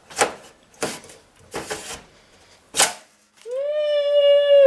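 A few sharp clicks and knocks of computer parts being handled, then about three and a half seconds in a dog starts a long howl that rises slightly and is held.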